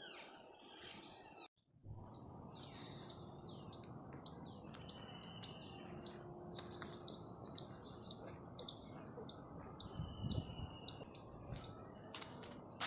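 Birds chirping and calling, with many short falling notes and some held whistled notes, over a steady outdoor hiss. The sound cuts out for a moment about a second and a half in, and there is a sharp click near the end.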